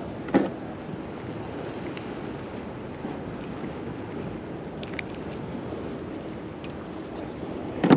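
Steady wind and sea surf along an ocean jetty, with two short thumps, one just after the start and a louder one at the very end.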